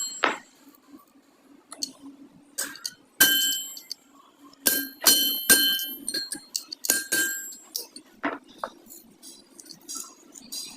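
Metal striking metal at an irregular pace, about a dozen clinks and clangs, several of them ringing on briefly afterwards, over a low steady hum.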